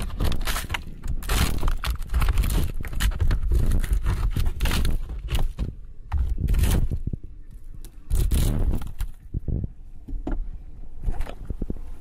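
Scraping and knocking of wooden beehive frames and boxes being handled and pried apart, irregular, with a couple of short pauses in the middle.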